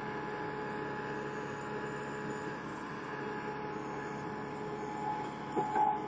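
Skid steer loader with a backhoe attachment running steadily, its engine and hydraulics giving an even hum with a steady whine over it while the bucket digs in a trench. A few short knocks come near the end.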